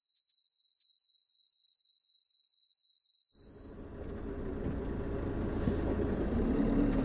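Cricket chirping: a fast, even, high pulsing trill at about five pulses a second that cuts off suddenly after about four seconds. A low steady rumble then takes over and slowly grows louder.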